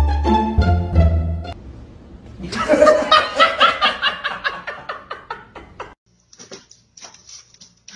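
Plucked string music for the first second and a half, then a long run of laughter, a quick string of "ha-ha" pulses that fades over about three seconds. Near the end only faint scattered ticks remain.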